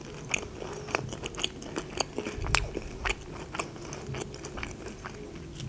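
A person chewing food with the mouth closed, close to the microphone: a run of small, irregular clicks and crunches.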